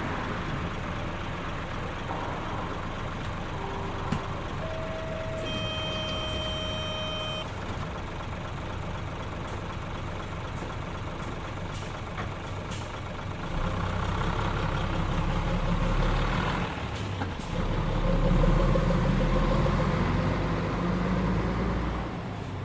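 Heavy diesel farm machinery running steadily at harvest. About five seconds in, a steady tone sounds for roughly three seconds. A deeper engine rumble grows louder in the second half.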